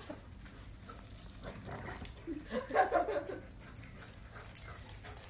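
Dogs at rough play: a short burst of whines and yips about halfway through, with little else heard around it.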